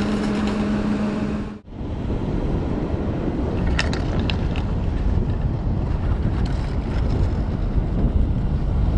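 Steady electrical-mechanical hum of the T-bar lift's drive machinery at the bottom station, cut off suddenly about a second and a half in. Then wind noise on the microphone while riding up the lift line, with a few short high clicks near the middle.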